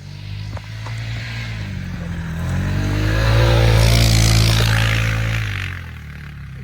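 A motor vehicle drives past. Its engine note and a rushing hiss swell to a peak midway, then fade away about a second before the end.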